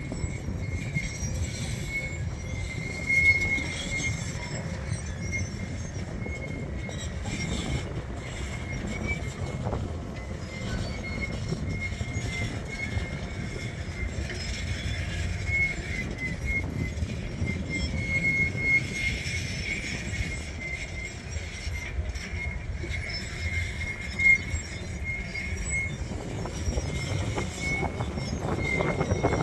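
A dense swarm of honeybees buzzing as a low, steady drone, with a thin high whine coming and going through it.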